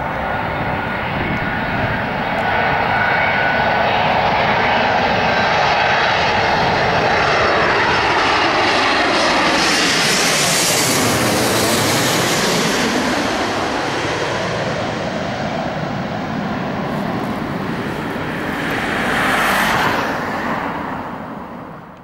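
Twin-engine jet airliner on final approach passing low overhead: the engine noise swells, and its rushing tone sweeps down and then back up as the aircraft crosses overhead about halfway through. Near the end the sound fades out.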